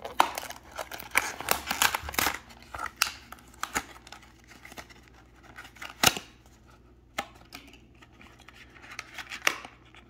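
Rigid plastic clamshell packaging being pried open and handled: a run of sharp plastic clicks and crackles, thick in the first few seconds, then sparser, with one loud snap about six seconds in.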